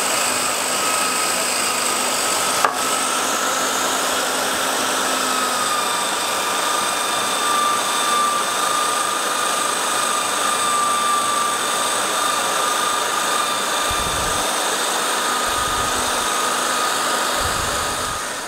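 Electric drill running steadily with a buffing wheel in its chuck, buffing a steel knife blade with green polishing compound, a thin steady whine over the running. One sharp click a few seconds in, and the sound dies away near the end.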